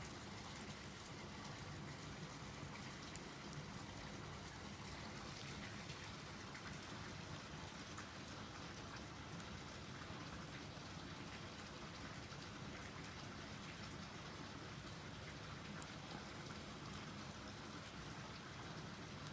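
Wood fire burning in a small camping wood stove: a faint steady hiss with scattered small crackles.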